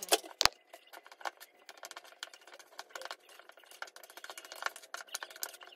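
Metal spoon stirring thick semolina batter in a metal bowl, with quick irregular clicks and scrapes of the spoon against the bowl. There are two sharper knocks in the first half-second.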